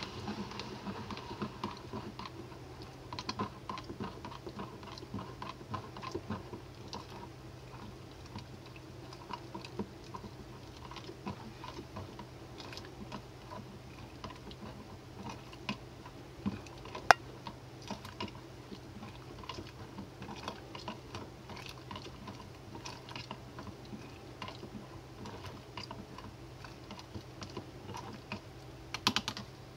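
A spoon stirring white granules in liquid in a clear plastic cup, making irregular small clicks and scrapes, with one sharper click just past the middle. A steady low hum runs underneath.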